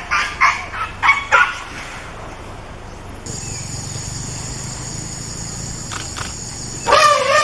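An animal's calls: a quick run of short, sharp calls at the start, then, near the end, a loud wavering call that rises and falls in pitch, over a steady hiss.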